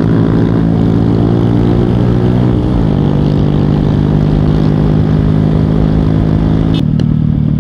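Honda motorcycle's single-cylinder engine running steadily while riding, over the rush of wind and road noise. Its pitch drops once, about three seconds in. Near the end a sharp click is followed by a rougher, lower engine sound.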